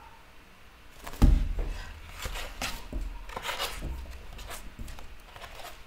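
A coloring book knocked down onto a wooden table about a second in, then paper pages rubbing and rustling as they are turned and handled.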